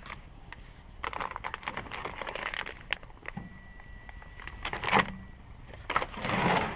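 Packaging and small parts being handled: plastic and cardboard rustling with scattered clicks, a sharper knock about five seconds in and a louder rustle near the end.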